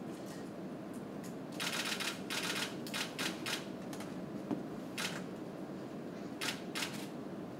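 Camera shutters firing in short rapid bursts, about eight of them from the second second onwards, over a low steady room hum.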